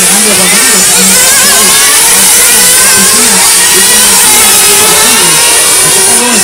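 Several 1/8-scale nitro RC GT cars' small glow engines running loud, their pitch rising and falling over and over as the cars accelerate and slow through the corners.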